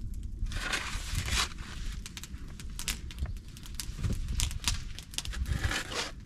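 A shovel working sawdust: two longer scraping, pouring bursts, one near the start and one near the end, amid scattered knocks and crunches.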